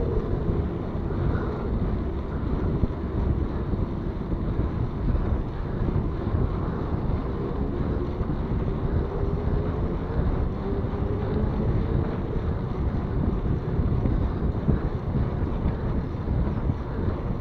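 Steady wind buffeting the microphone of a camera riding along on a moving mountain bike, mixed with tyre and road rumble. An engine tone fades out at the very start.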